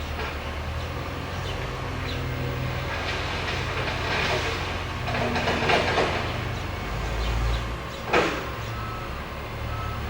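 A loud, steady low mechanical rumble. It swells into a broader rushing noise in the middle, and a single sharp crack comes about eight seconds in.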